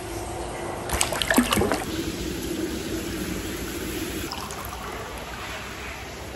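Hot-spring bath water trickling and lapping steadily, with a few splashes about a second in as someone moves in the water.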